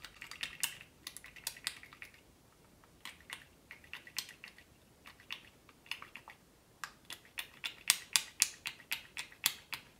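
Pump dispenser on a nearly empty bottle of Maybelline Superstay 24h foundation, clicking as it is pumped over and over. The sharp clicks come in irregular clusters, with a quieter stretch around the middle and a quick run near the end.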